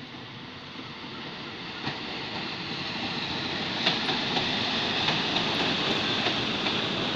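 Diesel-hauled passenger train passing close by, its rumble growing louder as the locomotive and coaches come alongside. From about two seconds in, the wheels click over rail joints, about two clicks a second.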